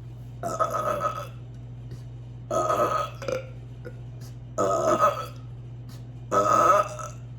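A woman burping loudly four times, each burp lasting under a second and coming about two seconds apart, with a steady low hum underneath.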